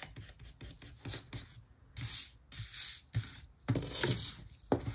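Paper and sticker sheets being handled on a planner page: several short, irregular rubbing and rustling strokes with a few light taps.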